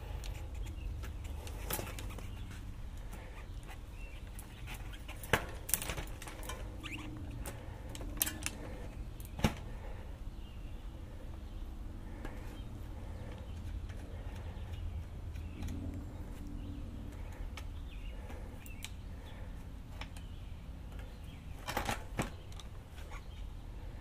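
Sharp metallic clicks and knocks of a mountain bike's front wheel being handled and fitted into the fork dropouts past the disc brake caliper, a few scattered and a cluster about five to ten seconds in, over a steady low rumble.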